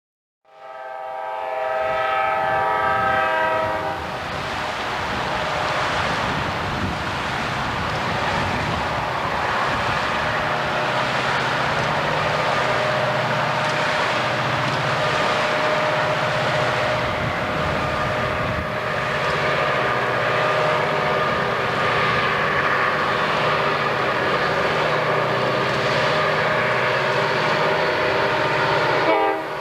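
EMD SD40-2 diesel locomotives, 16-cylinder turbocharged two-stroke engines, working hard in notch 8 as they pull a heavy freight up a steep grade. A chord from the locomotive horn sounds for about three seconds near the start, then the loud, steady engine and turbo noise mixes with the rumble of the passing train.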